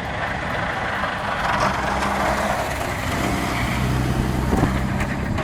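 A motor vehicle's engine running steadily, with a low hum under a loud rushing noise.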